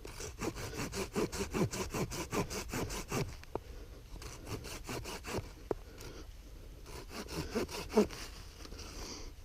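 Folding hand saw cutting in quick back-and-forth strokes, several a second, for about three seconds, then stopping and starting again in two shorter runs of strokes.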